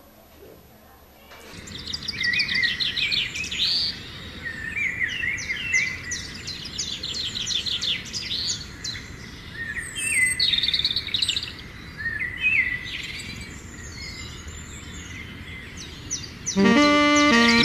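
Birds chirping and singing in quick runs of short calls, starting about a second and a half in, over a steady outdoor background hiss. Music cuts in near the end.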